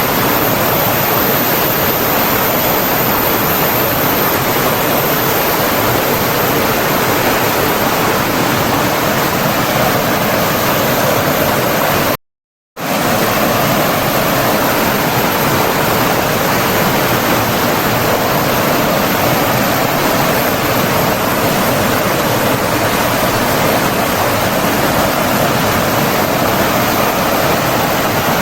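Forest stream running water, a steady, even rush. It cuts out completely for about half a second about twelve seconds in, then resumes unchanged.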